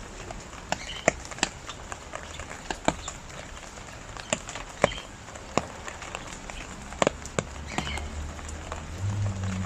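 Steady rain falling, with many sharp, separate drops and drips ticking loudly on a hard surface. A low steady hum begins near the end.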